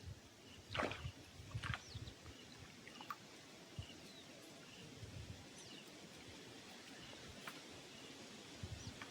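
Quiet outdoor ambience with faint, scattered bird chirps, a few sharp clicks and some low rumbling handling noise.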